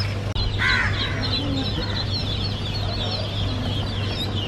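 Many day-old hatchlings peeping together in a crate: a steady mass of short, high cheeps, with one louder call about a second in.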